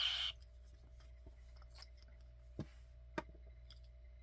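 A brief hiss at the start, then two sharp clicks, the second just over half a second after the first, as a vial is loaded into a metal hypospray prop replica and snaps into its magnetic holder.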